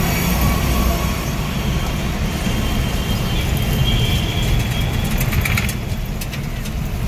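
Steady low rumble of a car's engine and tyres, heard from inside the cabin while driving in slow city traffic, with faint high tones from other traffic in the middle.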